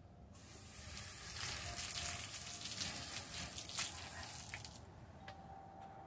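Water running from a garden hose, a steady hiss that starts abruptly just after the start and is shut off almost five seconds in.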